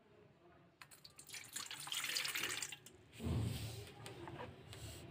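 Milk poured from a cup into an empty stainless steel bowl, splashing for about two seconds, followed by a dull knock about three seconds in.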